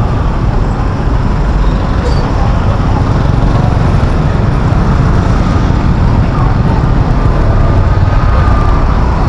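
Steady din of street traffic, with indistinct voices mixed in.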